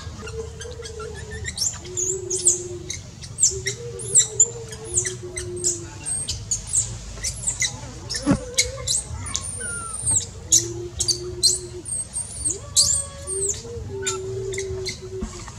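Rapid high-pitched animal squeaks and chirps, many short falling calls in quick succession, over a run of low held notes.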